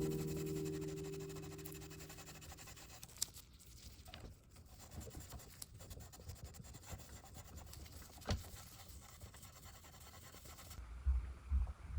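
An acoustic guitar chord fading out, then faint scratching with a few light clicks and one sharper knock about eight seconds in. Low dull thuds, about two a second, start near the end.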